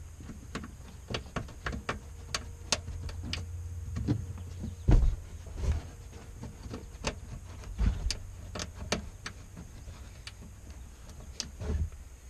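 Irregular clicks, taps and a few duller thumps from a Subaru BRZ's trunk trim liner being pressed back into place by hand and its plastic grommet clips pushed home. A steady low hum runs underneath.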